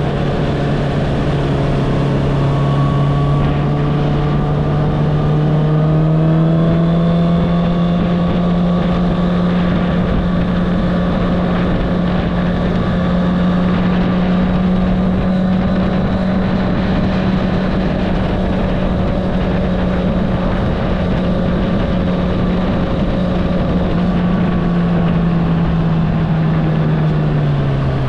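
Honda CBR650R inline-four with an Akrapovic exhaust, riding at a steady cruise: the engine note rises a little a few seconds in, holds level for a long stretch, then falls away near the end as the rider eases off. Wind and road noise run under it.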